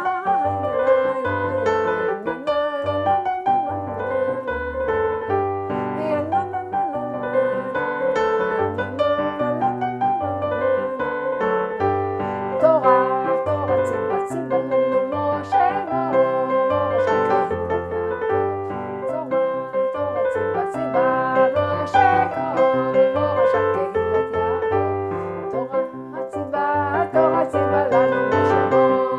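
Keyboard playing an upbeat nigun melody in piano tones over a steady pattern of bass notes, dipping briefly in level near the end.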